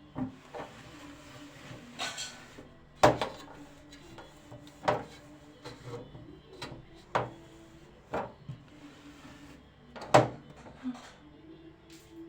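A series of sharp knocks and clunks at irregular gaps of one to two seconds, the loudest about three seconds in and again near ten seconds, as things are handled and set down in a kitchen, with a short rustle about two seconds in.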